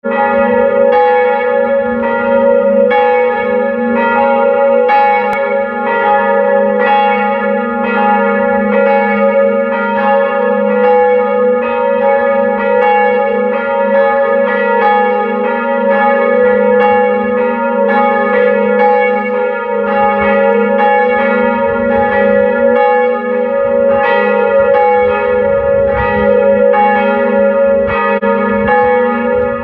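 Church bells ringing steadily, struck about once a second, their tones sustaining and overlapping between strokes.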